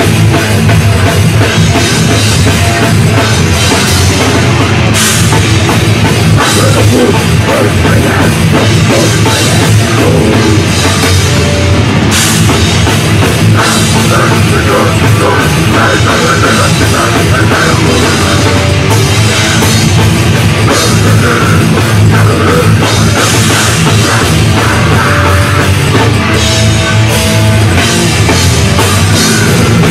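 Live heavy metal band playing loud: distorted electric guitars, bass and a pounding drum kit, dense and unbroken.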